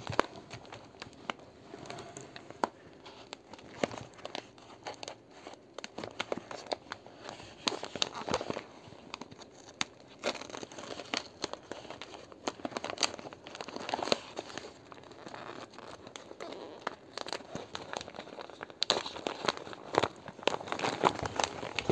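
Wrapping on a soft package being crinkled and torn open by hand: irregular crackling and rustling, a little louder near the end.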